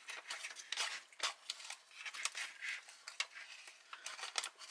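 Foil-lined food pouch crinkling and a metal spoon scraping inside it as the rehydrated chicken korma and rice are stirred and scooped: an irregular run of short rustles and scrapes.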